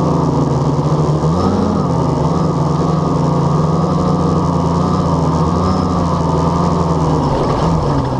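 Blade 350 QX quadcopter's electric motors and propellers buzzing, heard from on board the craft, with the pitch wavering as the throttle changes. The pitch dips a little near the end as it comes down to the grass.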